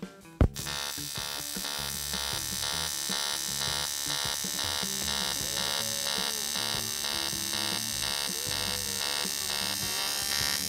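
Pulsed TIG welding arc from a Teamwelder TIG 180 AC/DC pulse welder. It strikes with a sharp crack about half a second in, then buzzes steadily, swelling and dipping in a regular rhythm as the pulse function switches the current back and forth between two settings.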